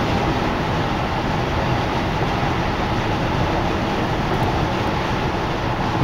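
Steady road and wind noise inside the cabin of a car moving at freeway speed.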